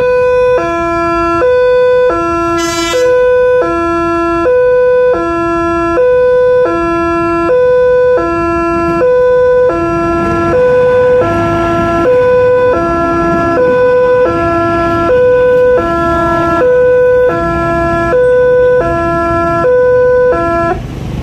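A railway level-crossing electronic warning alarm sounds a loud, steady two-tone high-low signal, changing tone about every 0.7 s, warning that a train is approaching. From about halfway through, the rumble of the passing Bhatara Kresna diesel railbus builds up underneath it.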